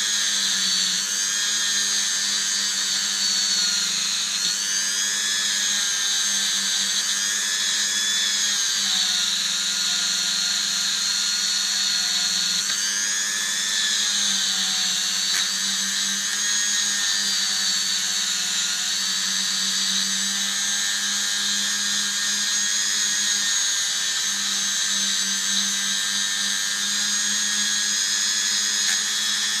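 Dremel rotary tool running at speed with a small wire brush, scouring a steel socket to clean it. A steady high whine that dips slightly in pitch a few times as the brush bears on the metal.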